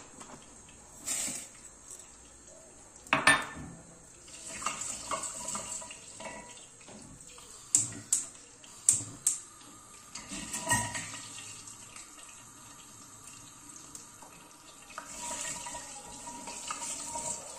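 Kitchen handling: dry rice rattling into a glass bowl, then scattered sharp clicks and clinks of a metal spoon against a cooking pot as vermicelli is stirred in oil, with four quick clicks about eight to nine seconds in.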